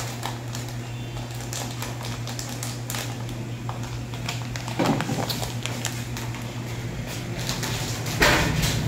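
Crinkling and small clicks of a plastic packet being handled and opened by hand, with a louder rustle about five seconds in and another near the end, over a steady low hum.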